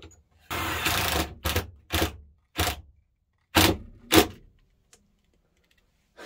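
Power screwdriver driving a screw into a refrigerator cabinet: one run of nearly a second, then five short bursts as the screw is snugged down.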